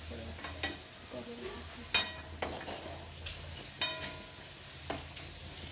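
Metal spatula clinking against a pan of hot oil about seven times, the strongest strike ringing briefly about two seconds in, over a steady frying sizzle as fried potatoes are scooped out.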